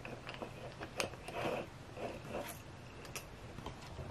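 Light clicks and taps of small plastic dollhouse pieces being handled: a miniature vanity's folding mirror wings closed and tiny accessories set down on it, with soft rustling between. A few sharp clicks stand out, one about a second in and another just after three seconds.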